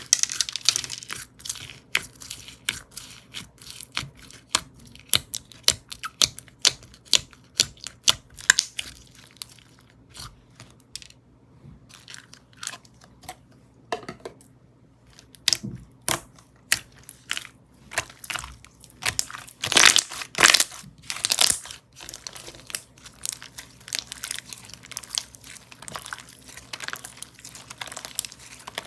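Hands working a slime, stretching, squeezing and poking it, with dense irregular crackling and clicking. A cluster of louder crackles comes about twenty seconds in.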